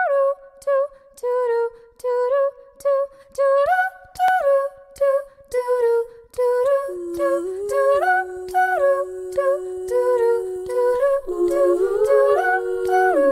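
Background music: an a cappella vocal intro, a hummed melody in short separated notes, joined about seven seconds in by a held lower vocal line and soon after by further voices.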